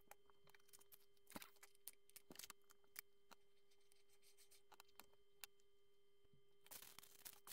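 Faint scattered clicks of plastic Lego pieces being handled and pressed together, growing into a denser run of clicking and rustling near the end, over a faint steady hum.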